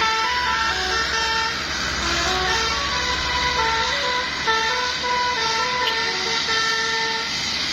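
Basuri telolet bus air horn with roof-mounted trumpets, driven by a melody module, playing a tune in quick stepped notes, several pitches sounding together. A low engine rumble runs underneath.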